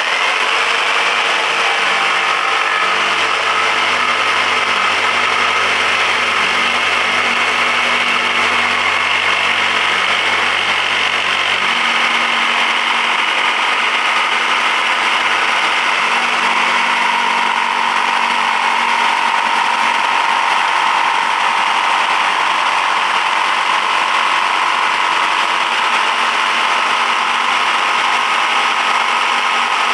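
Black & Decker KS701PE 520 W variable-speed jigsaw running steadily while cutting a curve through 1-inch mahogany hardwood, its tone shifting slightly about midway. The cut in hardwood goes slowly.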